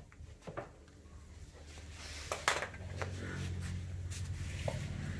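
Scattered knocks and clatter of plywood panels and a pneumatic nail gun being handled and set down on a concrete floor, the loudest a couple of seconds in. A steady low hum grows louder through the second half.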